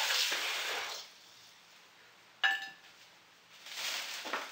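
A steady hiss cuts off about a second in. After a pause comes a single sharp clink of kitchenware that rings briefly.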